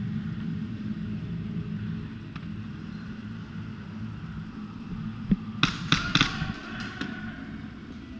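A steady low rumble, then a quick cluster of four or five sharp clicks or snaps a little over five seconds in, with one fainter click about a second later.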